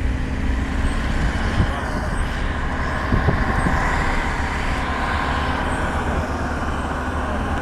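Engine and road noise heard from inside a moving car: a steady low rumble with tyre and wind hiss, and a couple of light knocks.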